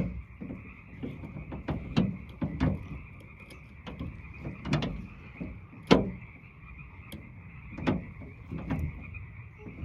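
Frogs calling: a steady distant chorus, with short, loud croaks from nearer frogs every second or so.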